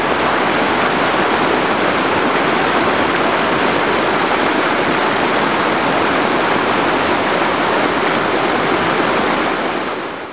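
Loud, steady rush of whitewater rapids, fading out near the end.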